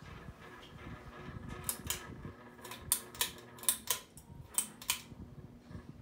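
Westinghouse Petite 30-inch ceiling fan running with a steady motor hum. About nine sharp, light clicks come irregularly between about one and a half and five seconds in.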